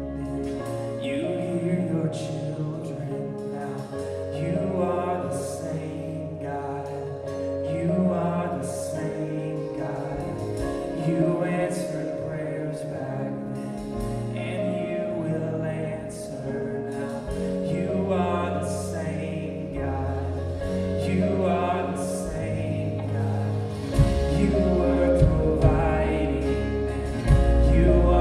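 Live church worship band playing with singers: sustained bass notes under keys and guitars, with voices carrying the melody. The band swells louder and fuller near the end.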